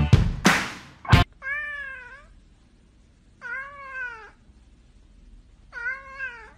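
A second of loud music, then an orange tabby cat meowing three times, about two seconds apart. Each meow is drawn out, rises and then falls in pitch, and sounds like "momma".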